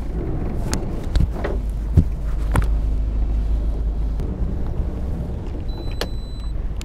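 Steady low rumble of a fishing boat under way, with wind on the microphone, broken by a few sharp knocks and clicks. About six seconds in there is a short high beep.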